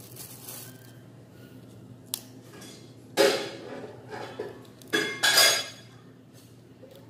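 A few short clatters from a metal basin being handled on a table. The loudest come about three seconds in and again around five seconds, with a smaller one between them.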